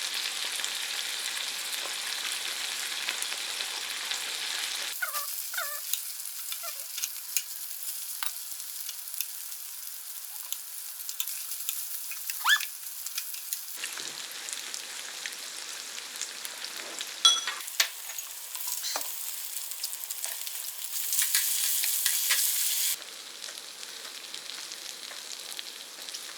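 Food sizzling and frying in a hot pan, with scattered short clicks. The hiss changes level abruptly several times.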